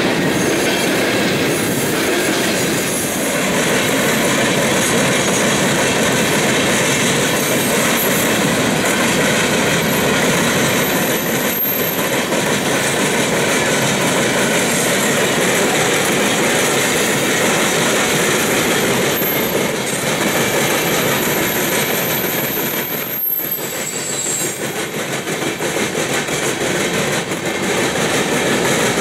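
Freight train of covered hopper cars rolling past close by, steel wheels clattering steadily over the rail joints, with a thin high wheel squeal at times.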